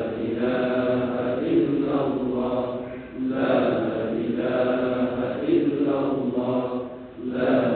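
A man's voice chanting Arabic in long, melodic held phrases, with short breaths between them, through the mosque's microphone and loudspeakers.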